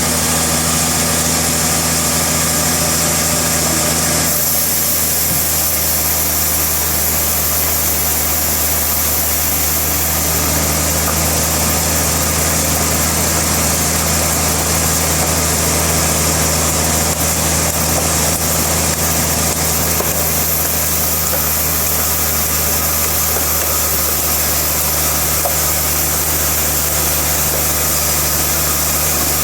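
Sawmill machinery running steadily at a constant speed, a continuous engine-like hum. A higher hum drops out about four seconds in.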